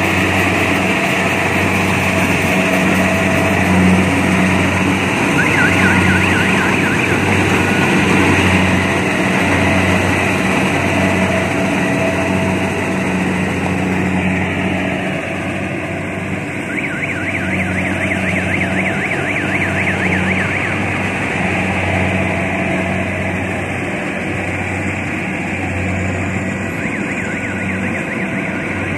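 Small Kubota rice combine harvester running steadily while it harvests rice: a continuous engine drone with a rhythmic pulse and machinery clatter. A fast rattling tick comes and goes twice.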